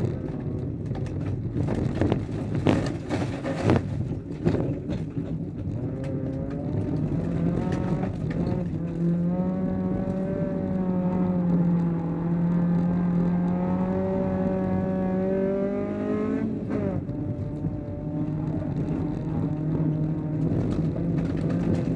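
Honda Civic folkrace car's engine racing hard, heard inside its stripped, roll-caged cabin. For the first few seconds the note is broken by many sharp knocks and rattles from the car body. The engine then holds a steady high note with slight wavering, breaks off suddenly about two-thirds of the way in, and settles to a steady note again.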